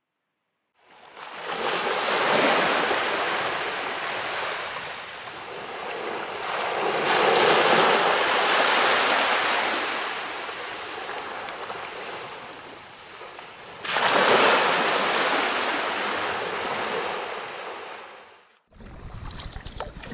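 Sea waves washing on the shore in slow swells, each surge rising and falling back over several seconds, with some wind. The sound begins after a second of silence and cuts off shortly before the end.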